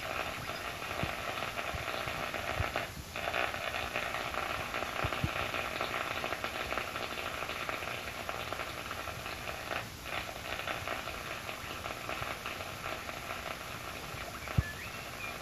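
Heathkit SB-310 shortwave receiver's loudspeaker giving out steady static hiss as the main dial is tuned across the 40-meter amateur band. The noise dips briefly about three seconds in and again near ten seconds.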